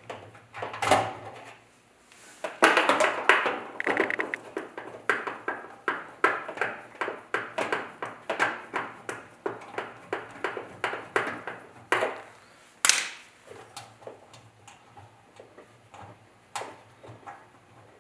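1/4-inch nut driver backing out two small screws on a gas water heater's burner assembly: a long run of quick metal clicks and scrapes, a couple a second, with a louder knock near the end.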